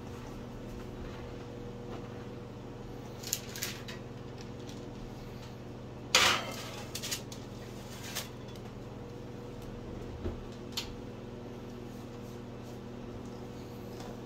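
A metal baking sheet being set onto the rack of a gas range's oven: one loud metal clatter about six seconds in, with several lighter clanks and knocks of the pan, rack and oven door before and after. A steady low hum runs underneath.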